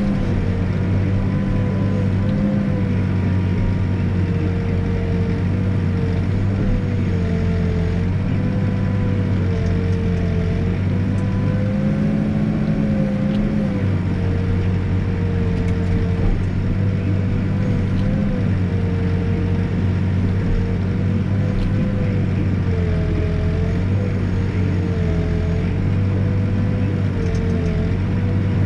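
Backhoe's diesel engine running steadily, its pitch dipping and recovering slightly every few seconds as it works.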